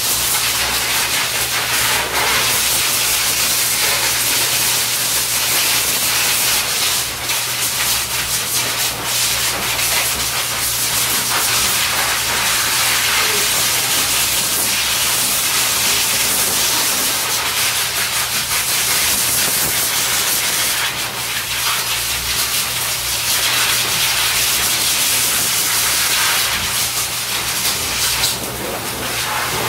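Pet grooming hose dryer blowing air onto a puppy's coat: a loud, steady rushing hiss over a constant low motor hum, dipping slightly now and then.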